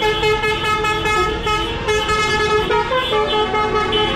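Light-decorated tractors driving past in a slow procession, engines running as a steady rumble. Over them, loud held tones step up and down in pitch one after another, like a tune on horns.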